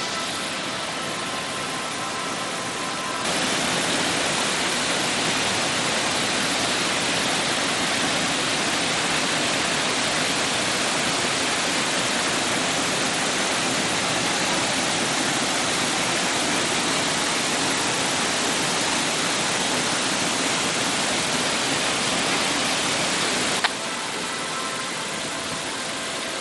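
Waterfall: a steady rush of falling water. It grows louder about three seconds in and drops back a few seconds before the end.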